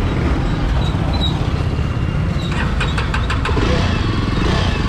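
Jawa 42 Bobber's single-cylinder engine idling steadily, with a short run of sharp clicks about three seconds in.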